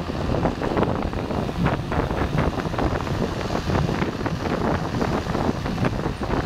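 Steady road noise of a moving vehicle, with wind buffeting the microphone in short irregular crackles.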